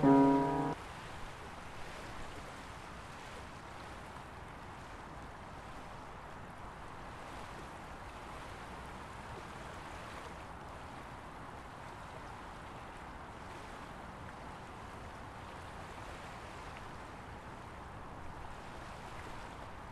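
A few held music notes stop within the first second, leaving a steady, even rushing noise with no tones in it.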